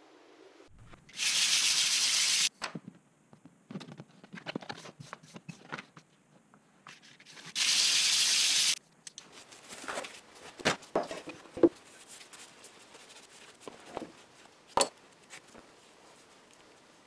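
Two loud, even hissing tears about a second each, a few seconds apart, then scattered light clicks and clinks of small metal parts being handled on a workbench.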